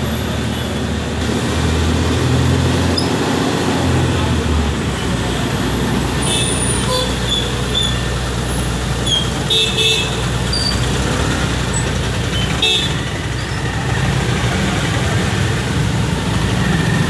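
Busy street traffic: motorbike and auto-rickshaw engines running past, with a few short horn toots now and then.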